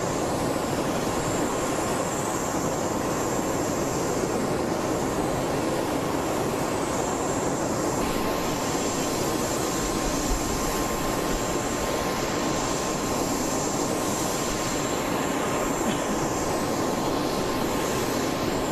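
Jet aircraft engine noise on an airport apron: a steady, unbroken roar with a high, steady whine running through it.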